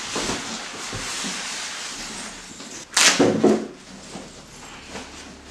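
Plastic wrapping and a cardboard box rustling and scraping as a keyboard is lifted out and handled, with a louder burst of rustling about three seconds in.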